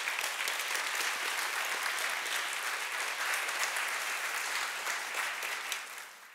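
Audience applauding, tapering off near the end.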